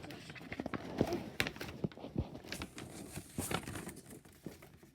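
Paper blind bag being crinkled and torn open by hand: irregular rustling and crackling, loudest about a second in and again past the middle.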